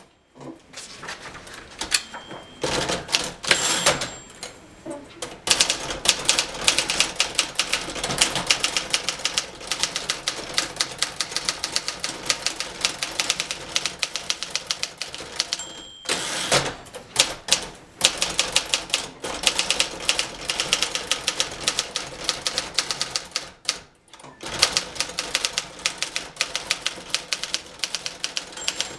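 Touch-typing on a 1958 Remington Letter-Riter manual portable typewriter: fast, rapid-fire keystrokes with typebars striking the platen. Typing stops twice, near the start and about 16 seconds in; each time a short bell-like ring is followed by a longer sweeping mechanical sound, typical of the margin bell and the carriage being returned.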